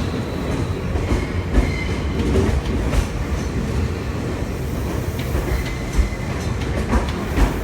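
Japanese passenger train running on the rails: a steady low rumble with a few sharp knocks from the wheels scattered through it.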